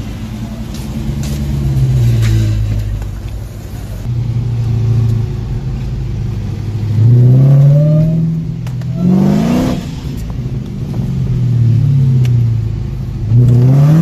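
Car engine heard from inside the cabin, accelerating hard: its pitch climbs steeply twice, once about halfway through and again near the end, and eases back down in between.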